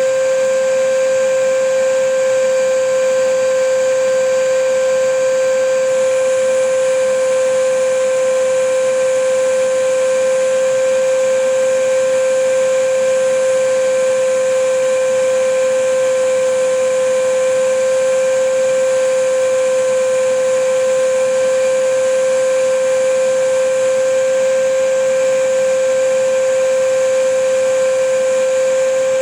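Vacuum cleaner running steadily: a constant motor whine over a rushing hiss of air, unchanging in pitch and loudness.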